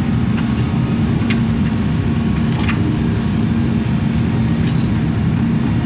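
Diesel engine of a mini excavator running at a steady speed, with a few faint clicks over it.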